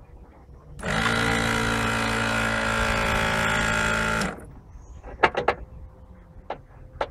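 A small motor starts about a second in, runs at one steady pitch for about three and a half seconds, then cuts off sharply. A few short clicks follow near the end.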